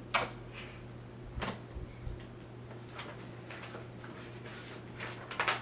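Soft handling sounds of a picture book: a few brief rustles and taps as the book is held and its pages are turned, with a quick run of them near the end.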